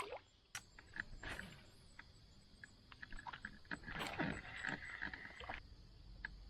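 Scattered light clicks and knocks of gear in a canoe, with a short rasping whir from about four to five and a half seconds in.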